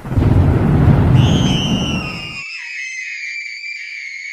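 Edited-in sound effects at a scene change: a loud rushing whoosh with a deep rumble lasting about two seconds, overlapped from about a second in by a long, clean whistle-like tone that slides slowly downward.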